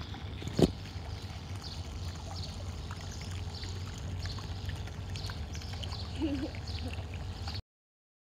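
Small splashes and water lapping around a toy boat propelled across a pool, over a steady low rumble. There is a single loud knock about half a second in, and the sound cuts off suddenly near the end.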